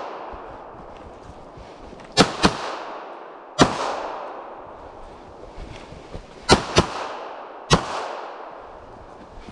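Six rifle shots: a quick pair about two seconds in, a single shot, another quick pair, then one more. Each shot is followed by a long echo that dies away.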